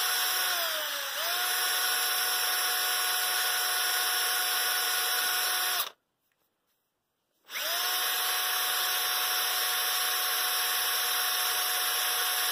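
A cordless drill spins a wooden dowel while sandpaper is held against it, sanding the dowel down. The motor's steady whine dips briefly in pitch about a second in, then recovers. The drill stops about six seconds in and starts again a second and a half later.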